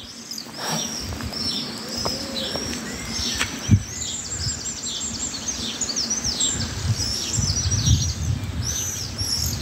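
A flock of swallows calling overhead: many short, high chirps that sweep up and down and overlap without pause. A single sharp knock about four seconds in is the loudest sound, and a low rumble comes in near the end.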